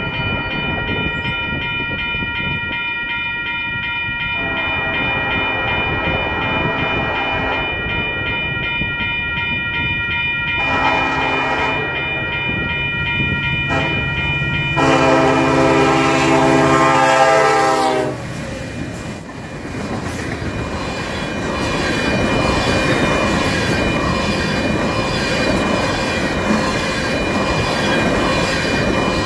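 Grade crossing bell ringing while an approaching freight train's diesel locomotive sounds its horn in the crossing pattern: two long blasts, a short one and a final long one, the last the loudest, ending about 18 seconds in. Then the train passes with a steady clatter of wheels as a string of tank cars rolls by.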